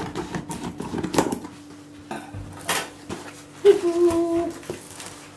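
Steel scissors snipping and sliding through packing tape on a cardboard box, then the scissors clattering down on a table and the cardboard flaps being pulled open. A short steady tone about four seconds in.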